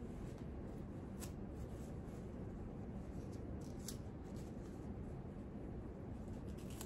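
Faint rustling and crinkling of a disposable adult brief being fitted and its tabs fastened, with a few short clicks, over steady room noise.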